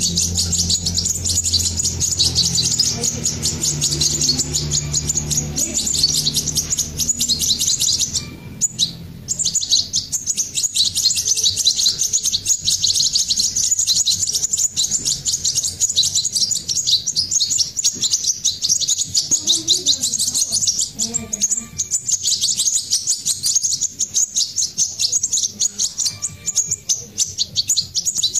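Hand-fed nestling songbirds giving rapid, continuous high-pitched begging chirps as they are fed, with a brief pause about eight seconds in.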